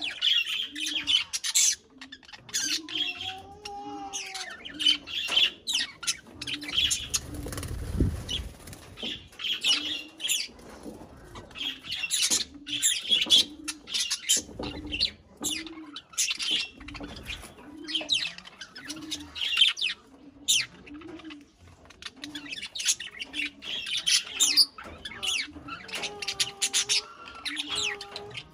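Budgerigars chattering: rapid high chirps and warbles, with a low call repeating steadily underneath and brief flutters of wings.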